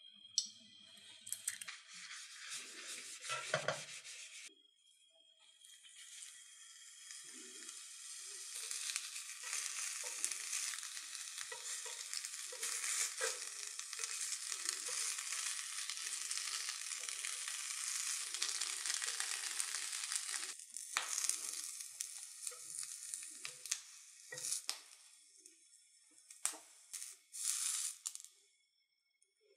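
Tarako (salted pollock roe) frying in a thinly oiled frying pan, sizzling with a few pops. The sizzle breaks off briefly about four seconds in, then builds up again and fades near the end.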